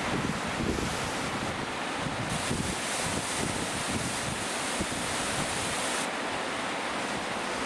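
Snowmelt waterfall rushing in a steady, unbroken roar of falling water, running with a heavy afternoon flow of meltwater.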